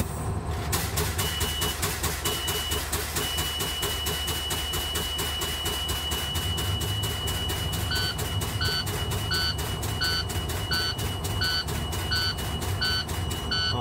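Pierce fire engine's diesel idling while its air brake pressure is bled down below 60 psi, with a rapid even pulsing throughout. The low-air warning buzzer comes on about a second in, first in short bursts and then steady, and from about eight seconds in a dash alarm also beeps about every 0.7 s, warning of low air brake pressure.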